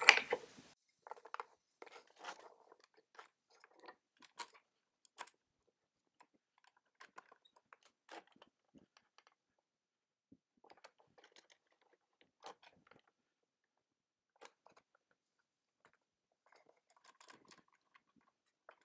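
Faint, scattered clicks and small creaks of a clamp's screw handle being turned and wooden end-grain blocks shifting as a cutting board is clamped up in a jig, spaced out about once a second.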